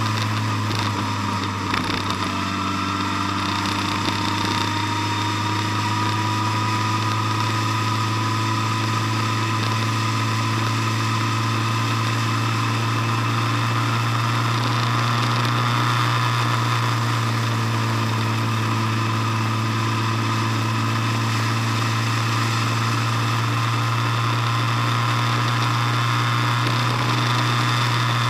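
Motor vehicle's engine running steadily while driving along, a constant low drone with road noise. A faint whine rises slightly in pitch over the first several seconds.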